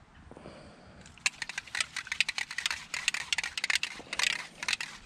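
Rapid, irregular plastic clicks and crackles, starting about a second in, as a long plastic extension tube and its spray nozzle are handled and fitted onto an aerosol can.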